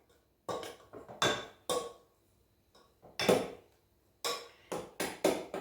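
A spoon clinking and knocking against the side of a cooking pot as milk is stirred: about ten short, irregular clinks, each with a brief ring.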